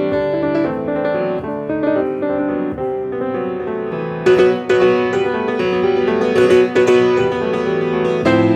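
Solo piano playing a melody over chords, turning louder with brighter, harder-struck notes about four seconds in.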